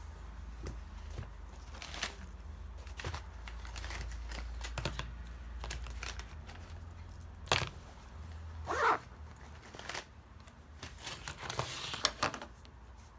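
Small handling sounds in a small room: scattered clicks and knocks, a sharp click about seven seconds in, and a brief rustling scrape just after it, over a low hum that fades out partway through.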